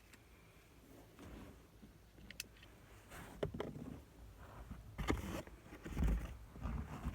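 Hands working on a plastic car door-lock bezel with a screwdriver: scattered small clicks and taps of plastic parts and tool, mixed with several dull thumps of handling, the loudest about five and six seconds in.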